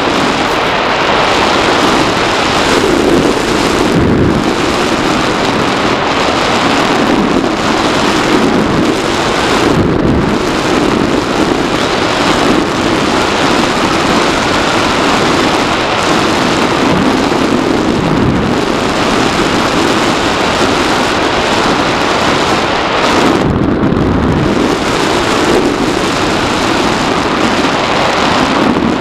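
Loud rushing wind noise from airflow buffeting the onboard camera's microphone on a Bixler 2 RC plane in flight, surging and easing every few seconds.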